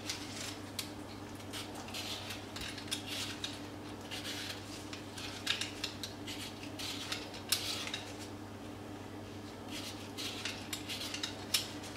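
A hand vegetable peeler scraping the skin off a raw beetroot in many short, irregular strokes. A steady low hum runs underneath.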